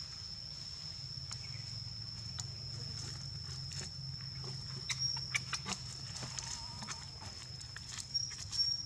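Macaques moving through twigs and dry leaves: a run of sharp rustles and snaps starting about halfway through, loudest near the end, over a steady high-pitched insect drone.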